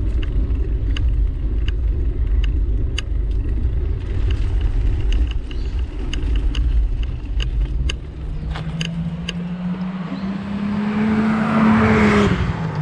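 Steady footfalls about every half second over a low rumble, then a car approaching: its engine note rises and its tyre noise swells to a peak about twelve seconds in. The pitch then drops sharply as it passes.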